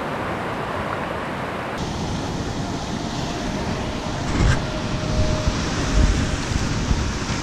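Sea swell surging and washing against a rock ledge, with wind buffeting the microphone in low thumps about four and a half and six seconds in.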